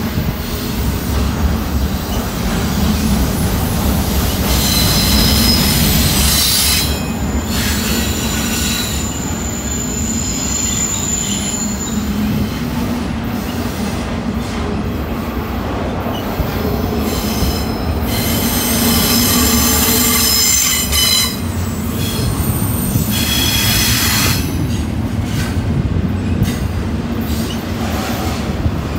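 Double-stack intermodal container cars rolling past at close range with a steady rumble. High-pitched wheel squeal rises and fades several times.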